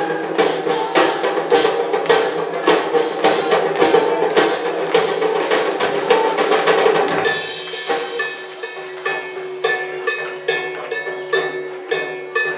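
Live rock band playing loud, with drum kit hits throughout. About seven seconds in the guitars drop out, leaving sharp drum strikes about twice a second over a steady held tone, as the drum solo begins.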